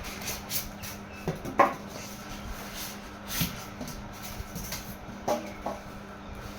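Cardboard box and packaging of an oven toaster griller being handled: scattered rustles, scrapes and light knocks, with a few short squeaks, over a steady low hum.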